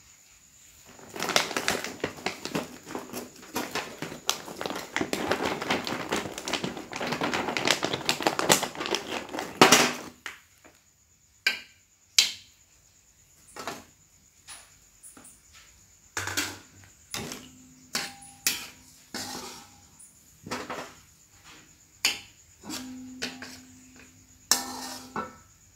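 Kerupuk crackers frying in hot oil in a metal wok: a dense crackling and sizzling for about the first ten seconds, then separate knocks and scrapes of the metal skimmer and spatula against the wok, some ringing briefly.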